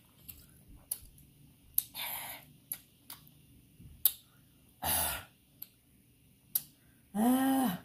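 A person eating noodles: small wet mouth clicks and smacks while chewing, two breathy sighs about two and five seconds in, and a short hummed "mm" near the end that rises and falls in pitch.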